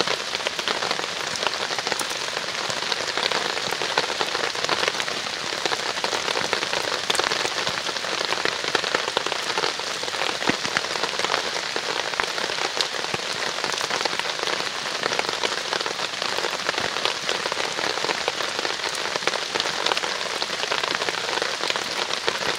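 Steady rain falling, a dense patter of many fine drops.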